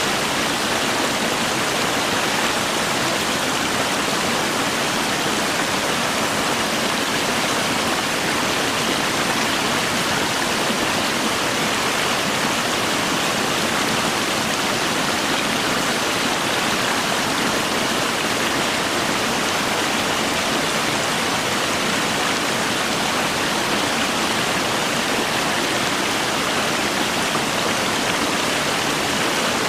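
Shallow rocky stream rushing over stones, a steady, even rush of water.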